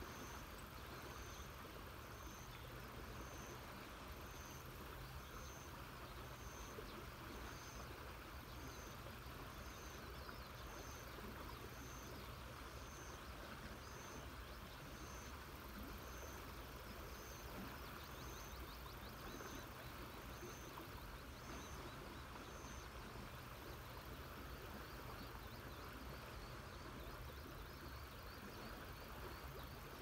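Steady rush of river water, with a small high call repeating about once a second that stops about two-thirds of the way through.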